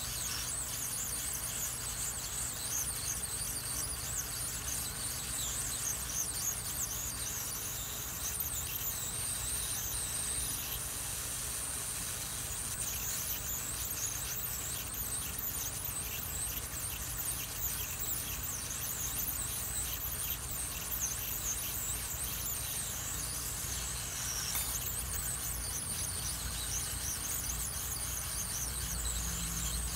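Hot air rework station set to 480 degrees, blowing hot air onto a chip on a circuit board to loosen it. It makes a steady rush of air with a high, wavering whistle.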